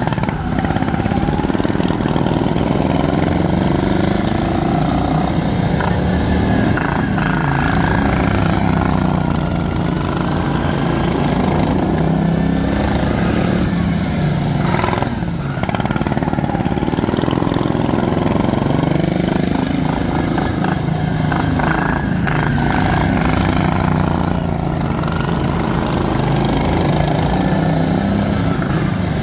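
Several racing lawn tractors' small engines running hard at once, their pitches rising and falling as they throttle up and back through the laps.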